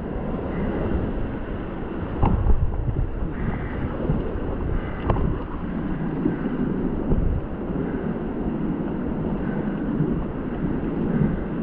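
Fast river water rushing and splashing around an inflatable whitewater raft under oar, with wind buffeting the camera microphone. A couple of short sharp knocks cut through, about two and five seconds in.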